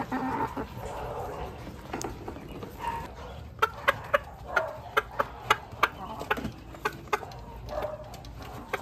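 Hens pecking food out of a plastic cup: from about three and a half seconds in, a run of sharp beak taps on the plastic, roughly two a second, with a few soft clucks.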